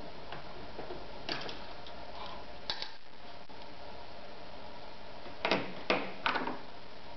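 Hands handling the metal parts of a Meister sewing machine around the needle and presser foot, giving a few scattered clicks and light knocks, with a cluster of three louder knocks near the end.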